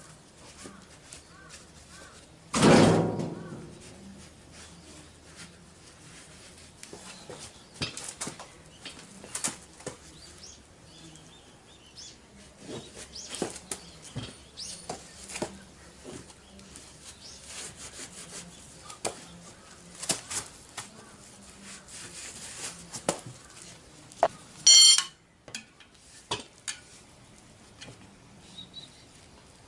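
Metal tools and tyre levers clinking and knocking on concrete while a motorcycle's front tyre is worked off its spoked rim, with one loud ringing clang about three seconds in and a short, loud metallic rattle later on.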